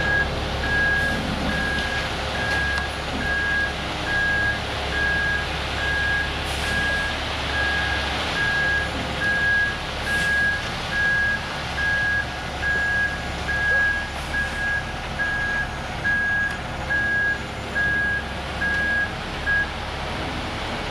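Concrete mixer truck's reversing alarm beeping steadily about once a second over the truck's engine running; the beeps stop near the end.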